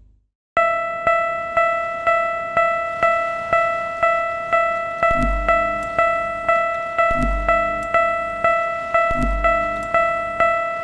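Japanese railroad crossing warning bell (kan-kan) ringing about twice a second, starting after half a second of silence. From about halfway through, a deep beat and a low chord come in every two seconds under it.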